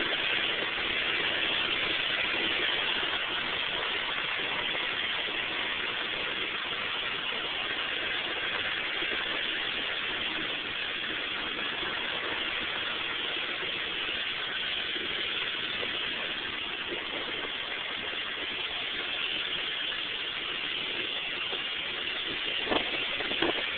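Utility vehicle running as it drives through wet field ruts, heard as a steady hiss through a poor phone microphone, with a few sharp knocks near the end.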